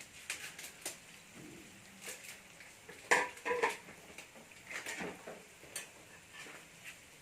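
Kitchen utensil clinking and knocking against a cooking pan while a roux of butter and flour is stirred, with two loud ringing knocks about three seconds in and lighter clicks around them.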